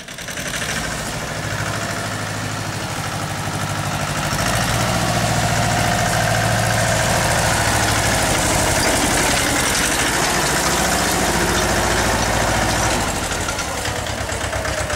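Mahindra Jivo 245 DI compact tractor's two-cylinder diesel engine running steadily, getting louder about four seconds in and easing back near the end.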